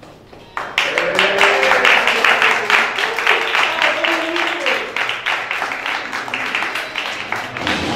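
Audience applauding, with voices cheering over the clapping. It starts suddenly about half a second in.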